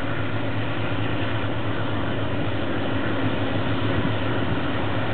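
Diesel locomotive running in the distance as the train approaches, a steady low drone that grows slowly louder.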